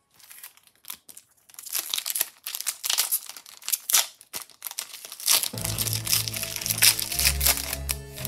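Foil wrapper of a Pokémon trading-card booster pack crinkling and tearing as it is handled and opened, in rapid crackly bursts. About two-thirds of the way through, background music with a steady bass comes in under the crinkling.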